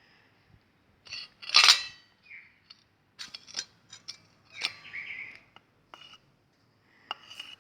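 Small hard containers and utensils being handled: scattered clicks and clinks, with one louder ringing clink about a second and a half in.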